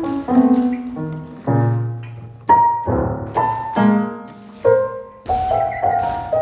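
Piano music: single notes and chords struck one after another, each dying away before the next.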